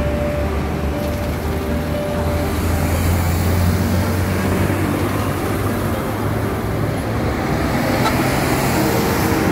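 Road traffic of heavy fuel tanker trucks and cars passing: a steady low diesel engine rumble with tyre noise.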